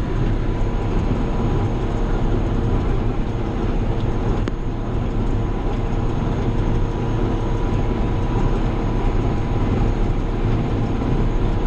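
John Deere 7200 tractor's diesel engine running steadily at PTO speed, driving a New Holland 570 square baler while baling hay, as an even drone with a faint click about four and a half seconds in.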